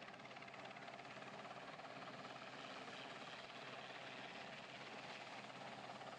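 Westland Sea King twin-turbine helicopter hovering close overhead, a steady rotor and engine noise with no let-up.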